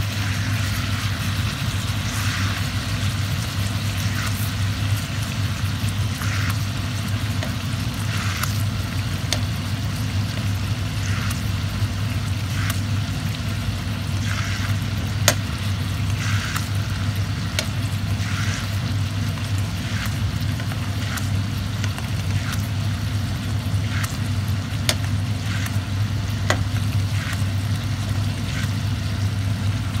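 Steaks sizzling in their juices in a cast-iron skillet, a steady hiss with short sharp pops and scrapes every second or two as a utensil works in the pan, over a steady low hum.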